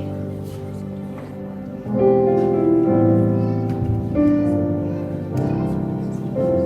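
Instrumental music with slow, sustained chords that change every second or two.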